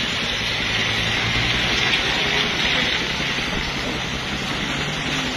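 Steady watery hiss of rain and wet road, with the low engine hum of cars moving slowly past underneath.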